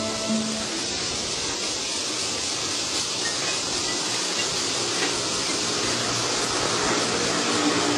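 A steady, even rushing noise with no clear pitch and no distinct events.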